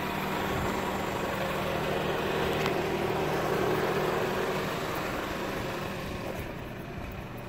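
1998 Toyota Camry engine idling steadily while warm, with motor flush circulating in the old oil before an oil change.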